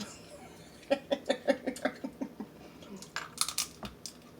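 Crab shells and scraps being handled: a run of light clicks and taps, then a few sharper crackles about three seconds in.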